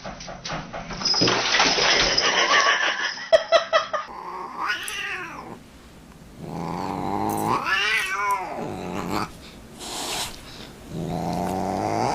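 A cat yowling in several long, drawn-out wails that rise and fall in pitch, after a few seconds of busy clattering noise.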